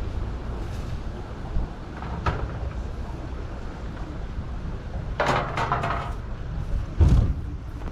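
Low steady rumble of a slow-moving tour boat coming alongside a floating pontoon. A brief clatter comes about five seconds in, then a single heavy thump about seven seconds in as the hull meets the pontoon.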